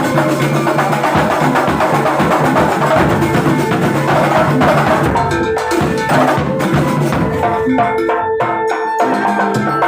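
Kuntulan percussion ensemble playing: dense, fast drumming with ringing pitched tones over it. About halfway through, the playing thins into separate, evenly spaced strokes.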